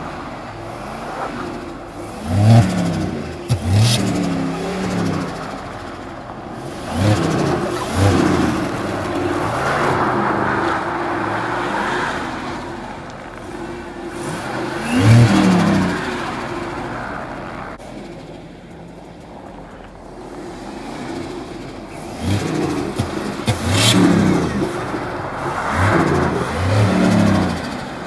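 Turbocharged 5.4-litre V8 of a 2003 Ford F-150 revving up and down in repeated bursts while the rear wheels spin on snow during two-wheel-drive donuts, with a steady hiss of spinning tyres underneath. It eases off briefly about two-thirds of the way through.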